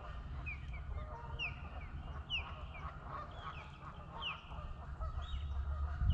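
Ospreys giving a string of short, high, downward-slurred whistled chirps, about one or two a second, over a low steady rumble; the calling goes with what the observer takes to be two ospreys fighting over the nest space.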